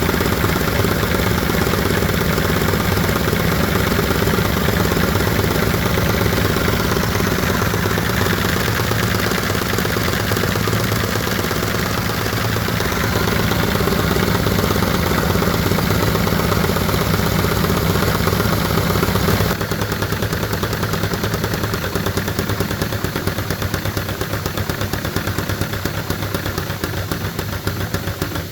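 Lego inline two-cylinder SOHC engine with plastic poppet valves and chain timing running: a fast, steady plastic clatter of valves, pistons and chain over a running hum. It drops in level about two-thirds of the way in, then fades gradually toward the end.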